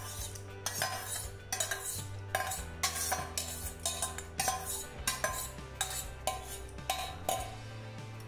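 A steel spoon scraping and clinking against a steel bowl and a steel mixer-grinder jar as soaked rice and its water are scraped into the jar, with a stir in the jar near the end. Repeated short clinks come about every half second, over background music with low bass notes.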